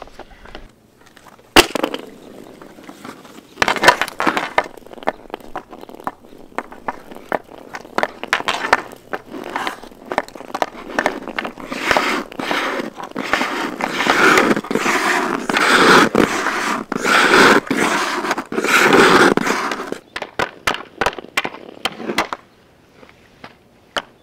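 Scraping over backyard rink ice, mixed with many sharp clicks and knocks. A hard knock comes about a second and a half in, and the scraping grows busier and louder through the middle before it thins to a few clicks near the end.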